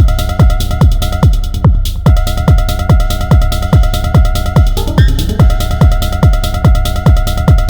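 Techno pattern played on an Elektron Model:Cycles groovebox: a steady kick drum with a falling pitch about twice a second under a rhythmically pulsing synth chord and ticking hi-hats. The highs drop out for a moment about two seconds in.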